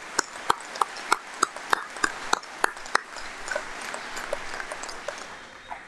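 Crowd applause, with single sharp claps standing out about three times a second. The applause dies away near the end.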